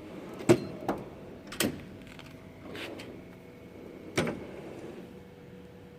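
Steel tool box drawers being shut and opened, with four sharp metallic knocks and clicks spread over several seconds and softer sliding and rattling between them.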